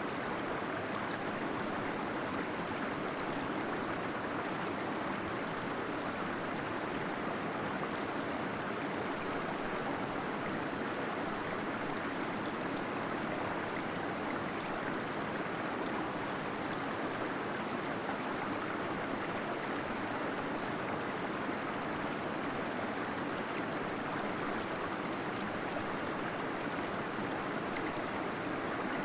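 Small waterfall splashing and gurgling steadily into a pool inside a cave, a constant even rush of water with no breaks.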